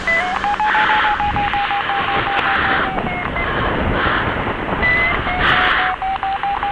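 Paragliding variometer sounding one steady electronic tone that shifts pitch in small steps and breaks off briefly now and then, following the glider's rise and sink in gusty air. Wind rush comes and goes behind it.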